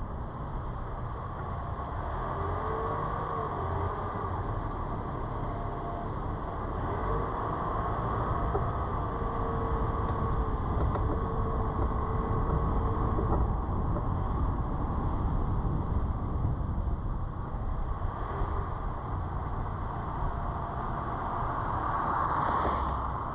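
A car driving slowly on city streets: steady low rumble of tyres on asphalt and engine, with a faint whine that wavers in pitch now and then.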